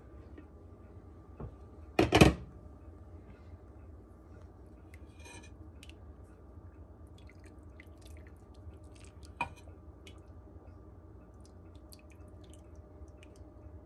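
A loud clink about two seconds in, then a few lighter taps and clinks: the glass lid of a slow cooker being lifted off and set aside, and a metal ladle scooping cooked pinto beans against the crock.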